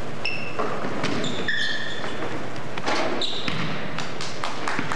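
Sneakers squeaking on a hardwood gym floor during a basketball game, several short high squeaks in quick succession. Near the end come a few sharp thuds of a basketball bouncing on the floor.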